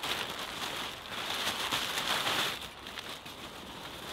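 Cheap plastic tarp rustling and crinkling as it is dragged and tucked into place, with dry leaves crunching underneath, loudest about halfway through.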